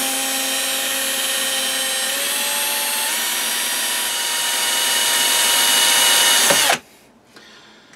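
Cordless drill driving a lathe tool-post drill spindle, its motor running with a steady whine as the bit drills through the work. The whine steps up slightly in pitch a couple of seconds in, and the drill stops shortly before the end, when the bit breaks through.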